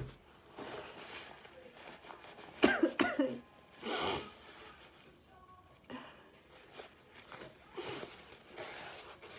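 A woman's loud sneeze about three seconds in, voiced and sharp, followed a second later by a breathy rush of air. Quieter breathing sounds come after it.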